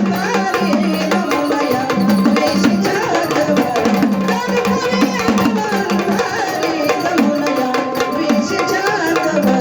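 Gondhal folk music: sambal drums beaten steadily with sticks under an electronic organ playing the melody.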